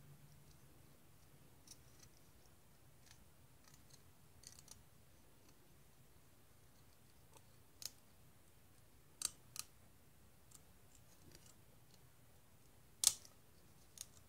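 Sparse light clicks and ticks of the thin laser-cut steel sheet of a Metal Earth model kit as it is bent and pressed into place by hand. A few faint ticks come first, then a sharper pair about two-thirds through, and the loudest click comes near the end.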